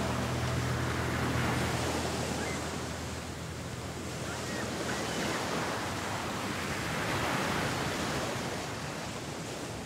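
Sea waves surging and washing in, swelling and falling back about three times and fading lower toward the end. The last held notes of background music die away in the first second or so.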